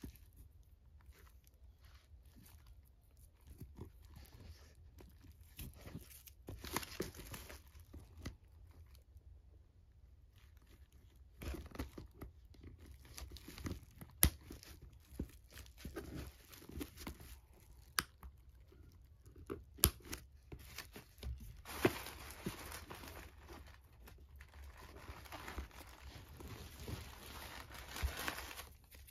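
Tissue paper rustling and crinkling as it is pulled out of a leather handbag, in irregular spells that are busiest about 7 seconds in and again over the last several seconds, with scattered sharp clicks from handling the bag.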